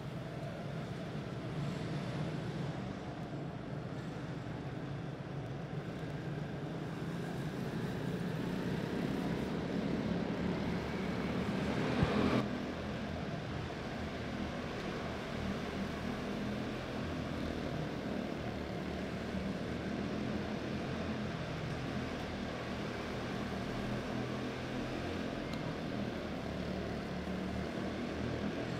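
A pack of quarter midget race cars with small single-cylinder Honda engines running laps of a dirt oval in a steady buzzing drone. The drone swells as the cars come closer, peaks with a brief sharp knock about twelve seconds in, then settles back.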